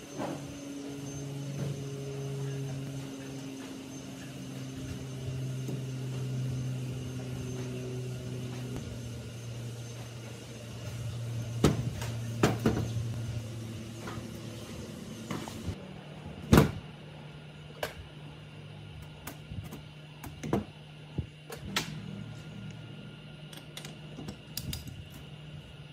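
A low, steady hum over the first half that fades out about halfway. Scattered sharp knocks and clicks run through the second half, the loudest about two-thirds of the way in.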